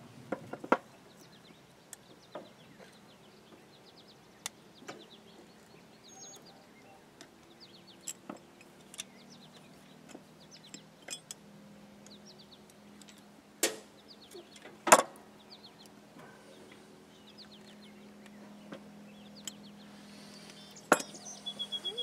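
Scattered sharp clicks and clinks of steel winch-cable hardware and locking pliers being handled and set down on a wooden board, the two loudest about two-thirds of the way through.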